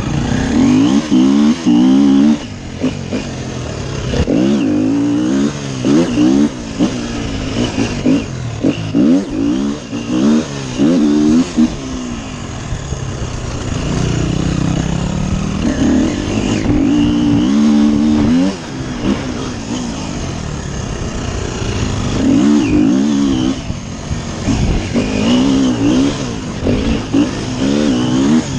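Dirt bike engine under race load, revving up and dropping back again and again as the rider accelerates, shifts and backs off through the turns.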